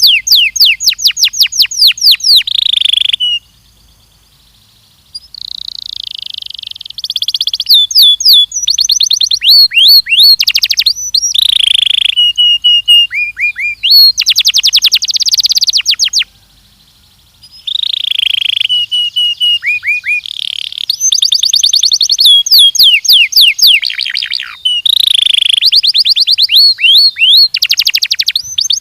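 Belgian canary singing: loud phrase after phrase of fast trills, each made of rapidly repeated high notes, with a pause of about two seconds a few seconds in and a shorter one past the middle.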